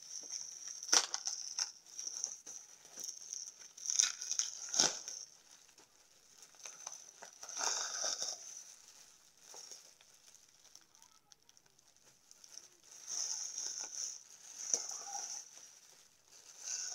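Plastic parcel mailing bag crinkling and rustling as it is handled and opened by hand, in irregular bursts with a few sharp snaps, and a lull of a few seconds midway.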